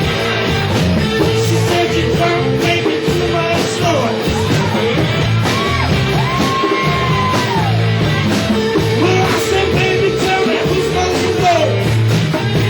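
Rock band playing a song live, with singing over loud, steady amplified instruments.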